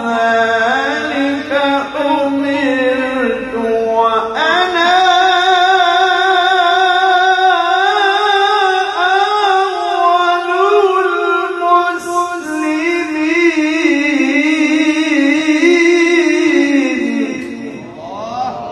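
A male qari reciting the Quran in the melodic tilawah style: one unaccompanied voice drawing out long, ornamented notes with a wavering pitch. New phrases begin about four seconds in and about twelve seconds in, and the voice fades near the end.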